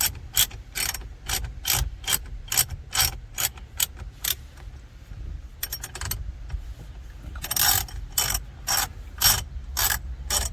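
Hand ratchet turning a triple-square bit, clicking in quick even strokes about two or three a second as the steering wheel centre bolt is undone. The clicking pauses a little before the middle, then starts up again.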